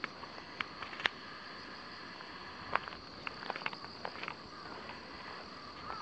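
A steady high insect chorus, with scattered light footsteps and small clicks as someone walks across the crossing.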